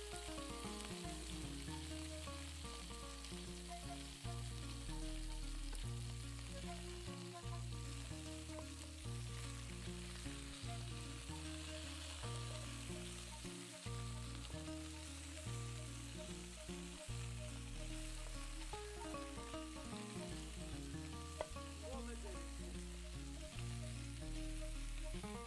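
Onions and oil sizzling steadily in a metal pot as peeled potatoes are stirred through them with a wooden spatula, with soft background music underneath.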